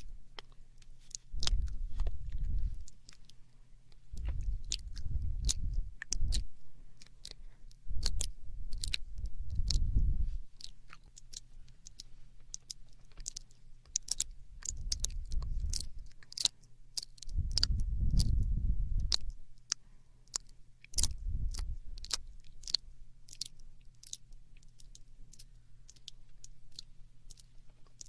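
Close-miked ASMR mouth sounds: a steady run of wet clicks and smacks of the lips and tongue, several a second, with patches of low rumbling every few seconds.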